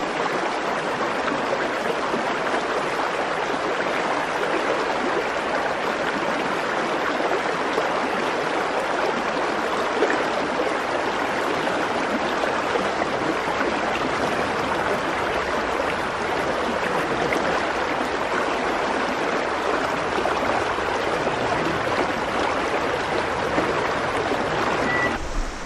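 Steady rushing of a shallow river's current.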